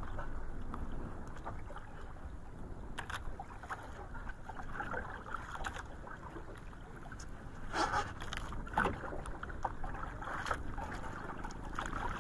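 Steady rush of sea water and wind around a small outrigger fishing boat, with scattered sharp knocks as a hooked skipjack tuna is hauled in by hand over the side; the loudest knocks come about eight and nine seconds in.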